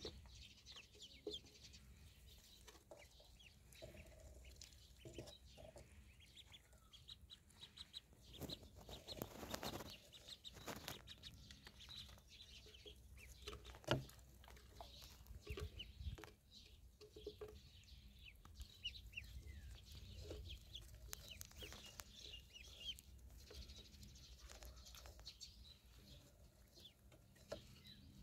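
A flock of ducklings peeping faintly as they forage, many short high peeps overlapping, with one sharp knock about halfway through.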